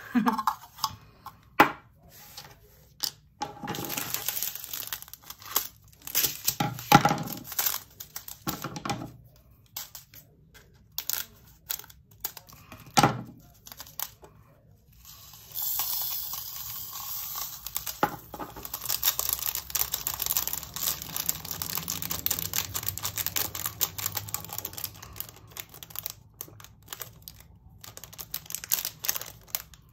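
Small plastic bags of round resin diamond-painting drills crinkling and rustling as they are handled, with scattered clicks of clear plastic storage containers in the first half. From about halfway there is a steadier, continuous rustle of the bag and drills.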